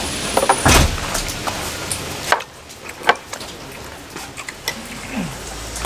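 Rain falling steadily, with a few sharp clicks of a metal spoon and chopsticks against dishes as someone eats. The rain hiss drops away abruptly about two seconds in, leaving quieter clicks.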